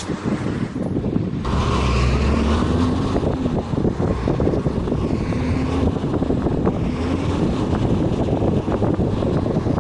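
A bus driving, its engine running under road and wind noise. The sound grows louder and the engine pitch rises about a second and a half in.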